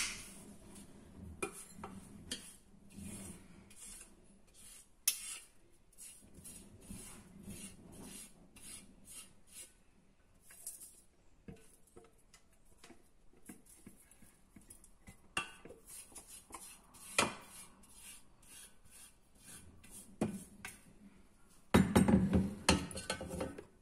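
Ground chickpea flour being emptied from a kitchen machine's metal jug: scraping, rubbing and scattered taps and knocks of a utensil against the bowl, with a louder stretch of clattering near the end.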